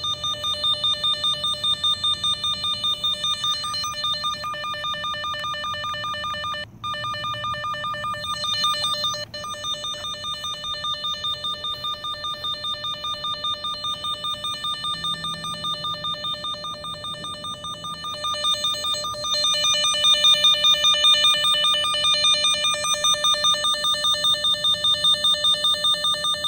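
Vevor underground cable locator receiver beeping rapidly and without a break, an even pulsing buzzer tone, with one brief drop-out about seven seconds in. It is picking up the transmitter's signal so strongly that it will not stop beeping even when carried away from the cable, a sign it is a little too sensitive.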